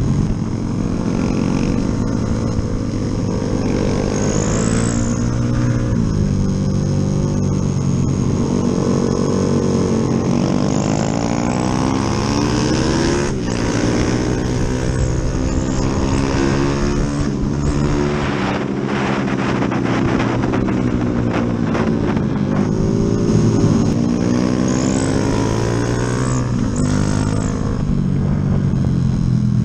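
Yamaha Jupiter MX single-cylinder four-stroke engine, bored up with a 72 mm piston, on a ride with its revs climbing and falling again and again as the throttle is opened and closed. Steady wind noise underneath.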